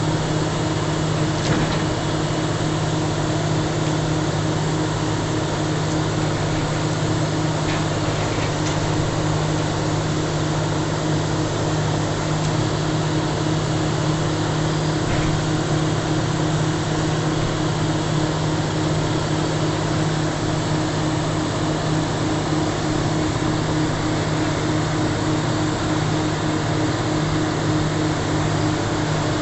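An engine running steadily at a constant speed, with a continuous low hum that does not change.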